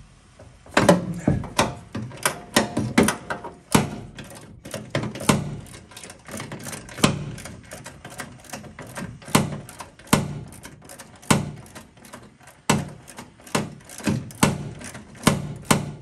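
Irregular metallic clicks and knocks, about one or two a second, from a wrench working loose a mounting bolt of a Volkswagen Type 3 pedal assembly.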